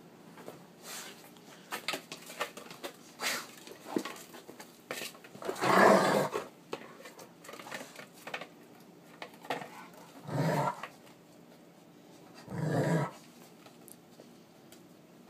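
A wolf hybrid and an Alaskan Malamute growling in rough play: three longer growls, the loudest about six seconds in, the others near ten and thirteen seconds. Scattered short clicks and scuffs come before them.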